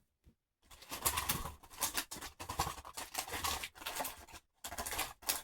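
Scentsy wax bars in plastic clamshell packs being handled and set down: an irregular run of crackling and clicking with short pauses.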